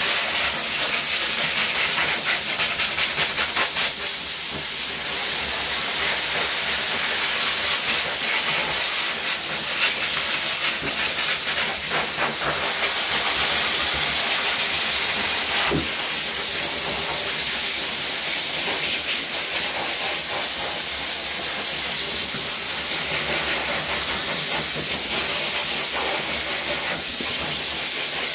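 High-velocity dog grooming dryer blowing air out of its hose into a wet curly coat: a steady hiss.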